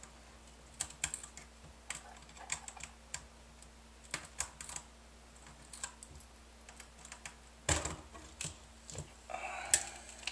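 Irregular small clicks and taps of a laptop LCD panel and its metal mounting frame being handled and worked loose with a small screwdriver, with one louder knock about three-quarters of the way through.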